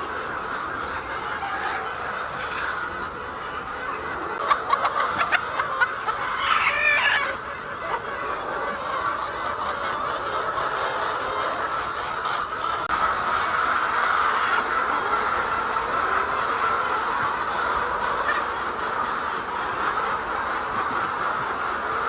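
A large flock of laying hens clucking in a dense, continuous din. A few sharp knocks come about four to six seconds in, followed by one louder single call.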